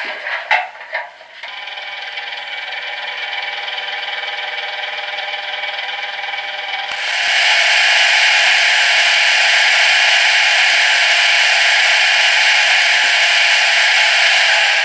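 Sound module of a Piko H0 model DR class 120 diesel locomotive playing its engine start-up. After a few irregular clatters the simulated diesel settles into a steady idle, then about seven seconds in it jumps to a much louder, harsher run.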